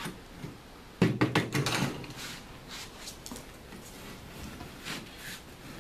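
A long metal level being handled on drywall and a work table: a sudden clatter of knocks about a second in, then scattered light taps and scrapes of tools on the drywall.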